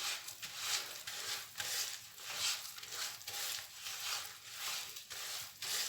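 A wire whisk stirring a thick toasted-semolina mixture in a pan, with repeated scraping swishes about twice a second.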